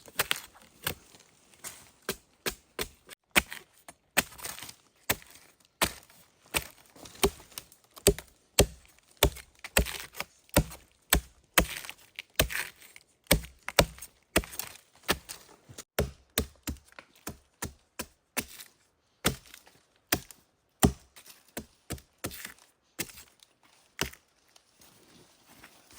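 Repeated chopping strikes of a blade into wood, roughly two a second and fairly even, stopping shortly before the end, as a wild tree is cut open to get at its core.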